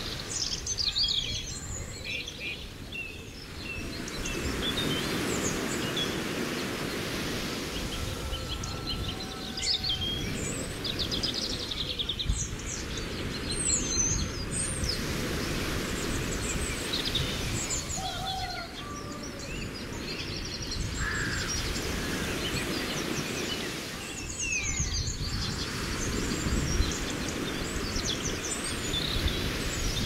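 Birds chirping and calling now and then over a steady wash of water.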